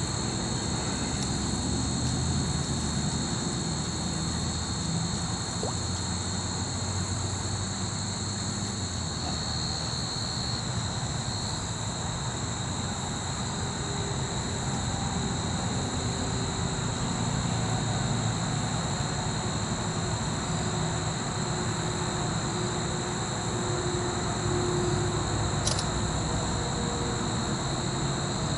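Steady outdoor background: a low rumble of machinery or distant traffic under a continuous high insect chorus at two pitches. One sharp click sounds near the end.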